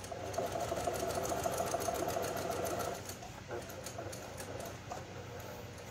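Brother PQ1500-series straight-stitch sewing machine stitching steadily through layered fabric for about three seconds, then going quieter as the stitching stops or slows.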